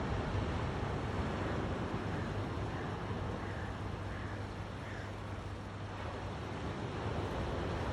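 Calm sea washing at the shore: a steady, even rush of water with a low rumble underneath.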